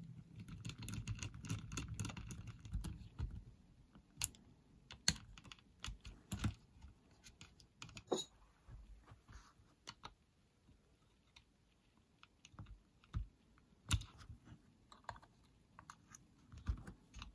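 Small clicks, taps and scrapes of a screwdriver and fingers working on an opened personal cassette player's plastic case, circuit board and screws. Scratchy rubbing for the first three seconds or so, then scattered sharp clicks.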